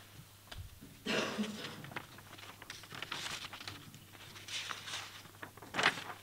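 Sheets of printed photographs rustling as they are handled and swapped in front of a microphone, in several short rustles, over a faint steady electrical hum.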